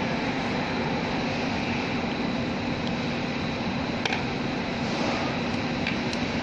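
Steady machine drone with a constant low hum running under it, and two light metallic clicks, about four and six seconds in, as small pump parts are handled with a screwdriver.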